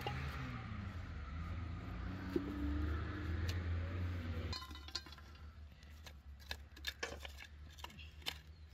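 Metal lid and cast-iron pot clinking as the pot is covered over an open wood fire, with a low rumble underneath. From about halfway, scattered small sharp clicks and knocks as wood is handled around the fire.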